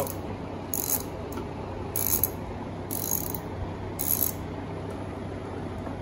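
Hand ratchet wrench clicking as it is swung back, four short strokes about a second apart, while a bolt is run in by hand.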